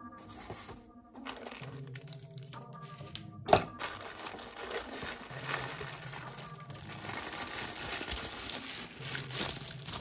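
Clear plastic bag crinkling as a bagged accessory is lifted out of its foam-lined cardboard box and handled, with one sharp knock about three and a half seconds in. Quiet background music underneath.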